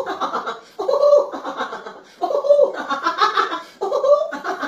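A woman laughing in repeated bouts of about a second each, with short breaks between. Each bout opens on a held high note and breaks into quick pulses.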